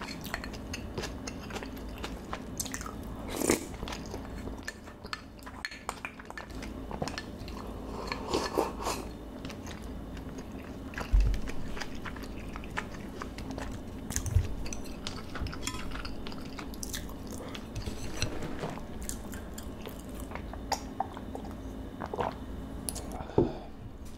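Close-miked chewing of a mouthful of marinated beef bulgogi and rice, with many small wet mouth clicks and smacks. A few louder knocks stand out, about three seconds in, twice in the middle and near the end.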